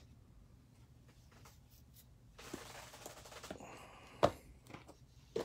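Soft rustling of trading-card packaging being handled, then a sharp knock about four seconds in and a smaller one near the end.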